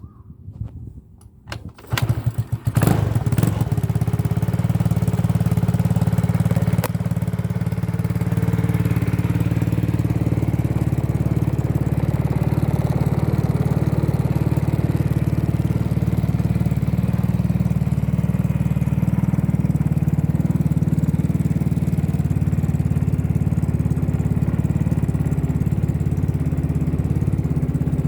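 Yamaha Majesty 125 scooter's single-cylinder four-stroke engine, breathing through a Yoshimura aftermarket muffler, starting about two seconds in, revving briefly, then idling steadily.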